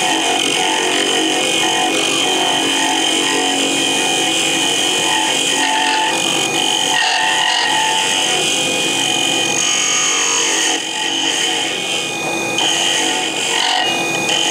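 Lathe running with a hand-held turning tool cutting a spinning pen blank: a steady motor and cutting noise that eases briefly a few times near the end.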